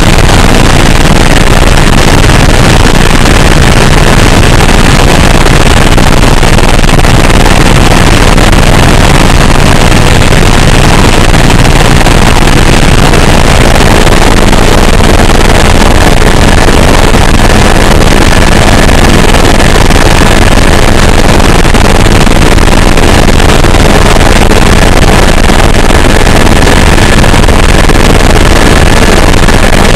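Tour helicopter in flight: steady, very loud engine and rotor noise with no change throughout.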